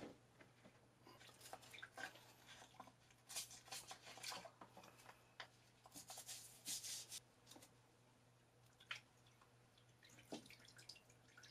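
Faint stiff brush scrubbing a degreaser-soaked lathe tailstock turret housing in a tub of Purple Power, in short bursts of scratchy strokes with wet splashes and drips, and a couple of light knocks near the end.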